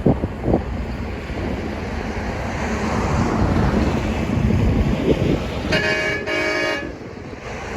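Excavator diesel engine running steadily, with a couple of knocks near the start. About six seconds in, a vehicle horn gives two short honks back to back.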